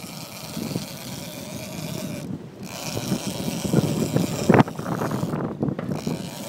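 Wind buffeting the microphone over the steady rush of sea and boat noise on a fishing boat's deck, with a few muffled voices and knocks in the second half.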